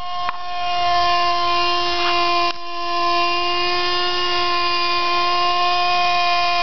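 Lite Machines Model 110 RC helicopter's small .07 glow engine running with a steady, high-pitched whine.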